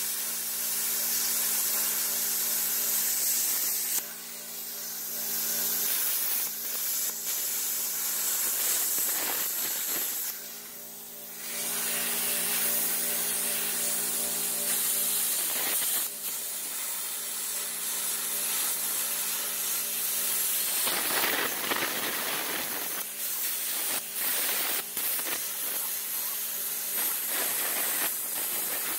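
Cheap plasma cutter cutting through a steel car frame: a steady hiss of the air and arc over a low steady hum, breaking off briefly about four seconds in and again for about a second near the eleven-second mark.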